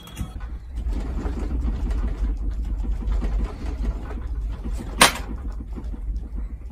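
A room shaking in an earthquake: a steady low rumble with objects rattling in quick small ticks, and one sharp knock about five seconds in.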